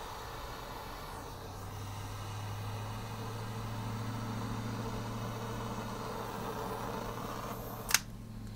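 Long-handled windproof butane lighter hissing steadily as its jet flame is played over wet acrylic paint, cut off with a sharp click about eight seconds in when the trigger is released.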